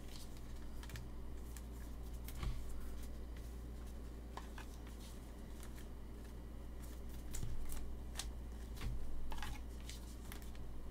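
Trading cards being handled by gloved hands: scattered soft clicks and rustles at irregular moments as cards are slid off the stack and shown one at a time, over a steady low hum.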